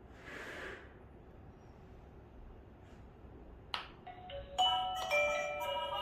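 A click, then a doorbell chime playing a tinkling melody of bell-like notes.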